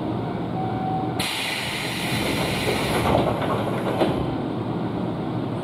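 Nankai train's sliding doors closing: a brief tone, then a sudden loud hiss of air a little over a second in, and the doors knocking shut about four seconds in, over the low rumble of the stopped train.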